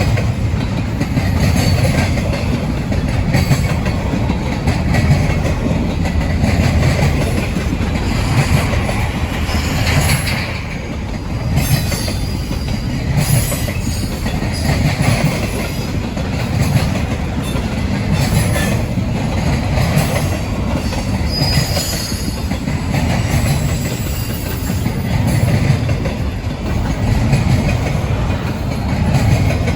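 Freight train cars rolling past, a steady heavy rumble of steel wheels on rail with repeated clicks over the rail joints and a brief high wheel squeal past the middle.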